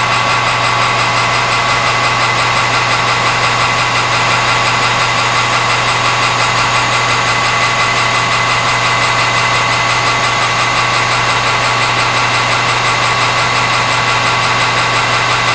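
Metal lathe running steadily as it faces off the end of a workpiece: a continuous mechanical hum with a steady high whine.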